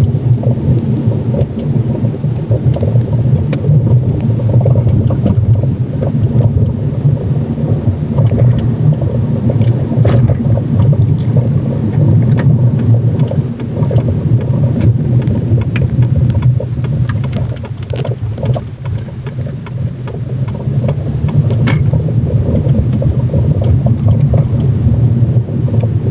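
Car driving, with a steady low road rumble and frequent short, irregular knocks and a fine rattle from a strut top mount built on Soviet split ShS20 spherical plain bearings, bolted to the strut tower with no vibration isolation. The knock comes from those spherical bearings of the top mount.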